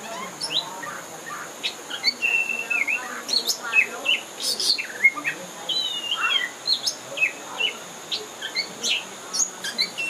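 Black-and-white songbird, the tinjau hitam, calling in a busy jumble of short chirps, whistles and clicks, several notes sliding up or down in pitch, with brief gaps between bursts.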